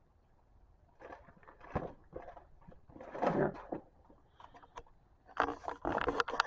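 Objects being handled and moved about by hand: scattered knocks, clicks and rustles, a louder rustle about three seconds in, and a busy run of clatter near the end.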